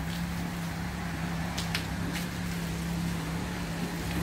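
Self-service car wash's foam-brush pump running with a steady low hum, over an even hiss of the foam brush scrubbing the soapy car body.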